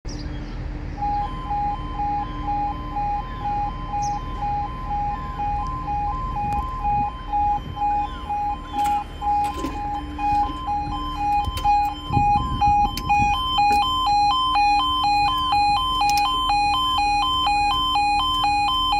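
Level crossing audible warning alarm sounding a steady alternating two-tone, starting about a second in, as the barriers come down. A few low knocks come about twelve seconds in.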